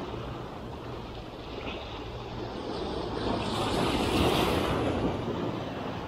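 Sea waves breaking and washing against shoreline rocks, with wind buffeting the microphone; a bigger wave surges about four seconds in.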